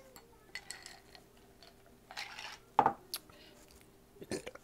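Drinking from a glass of iced juice: ice cubes clinking in the glass and swallowing, with one loud short sound about halfway through. Near the end there are knocks as the glass is set back down on the wooden table.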